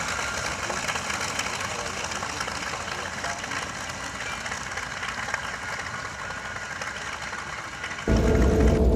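Lockheed Super Constellation's four Wright R-3350 radial piston engines running at low power while taxiing, a steady rough drone. About 8 seconds in it switches abruptly to a much louder, deeper engine rumble.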